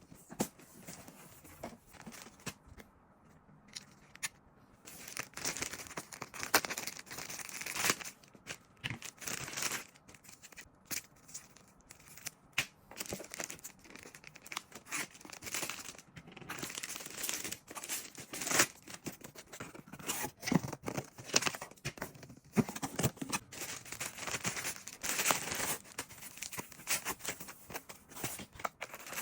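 Packaging being opened by hand: irregular tearing and crinkling of wrapping, in quick uneven rustles.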